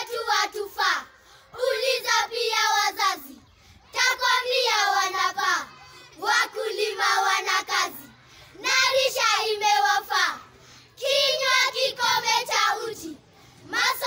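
A group of schoolchildren chanting a Swahili poem together in unison, in sing-song phrases of a second or two with short pauses between them.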